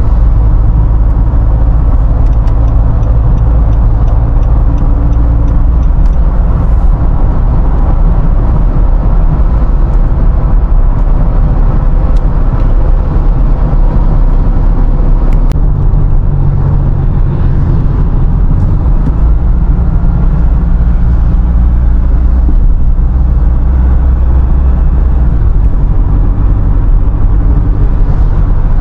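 Nissan Navara pickup cruising on an expressway, heard from inside the cabin: a loud, steady low rumble of road and engine noise, with an engine hum that shifts in pitch a few times.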